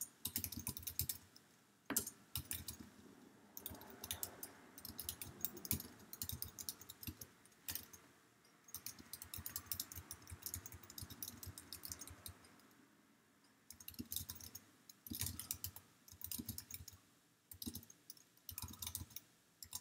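Faint typing on a computer keyboard: quick runs of key clicks as a sentence is typed out, with a couple of brief pauses.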